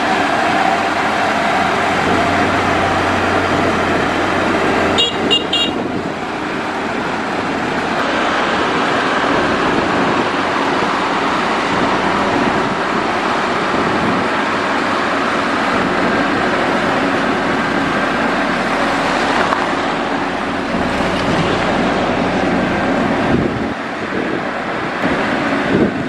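Diesel engine of a Mitsubishi MG-400 motor grader running steadily under load as its blade grades gravel. A few short high beeps sound about five seconds in.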